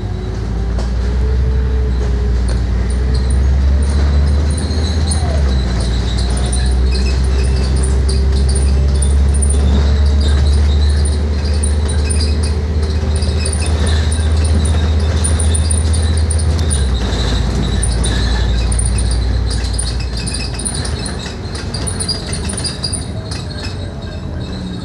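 Scania K310UD double-decker bus engine pulling away and accelerating, heard from inside the bus. The engine note steps to a new pitch about five seconds in as the gearbox shifts, then eases off after about seventeen seconds as the bus slows. Light jingling rattles go on throughout.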